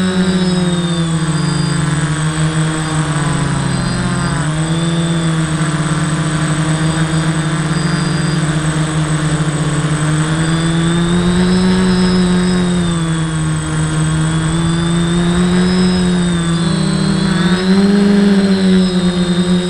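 Custom-built quadcopter's electric motors and propellers buzzing loudly, heard from the camera on its own frame. The pitch wavers, rising and falling every few seconds as the throttle changes.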